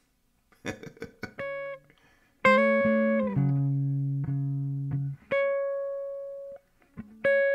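Semi-hollow electric guitar played: a few short plucked notes, then a chord struck about two and a half seconds in and left to ring, then a single note ringing out, and more notes struck near the end.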